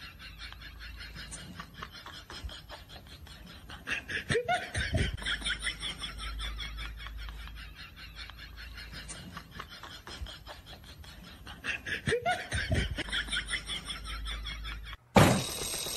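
People laughing in quick, repeated bursts of giggling. A sudden loud noise cuts in about a second before the end.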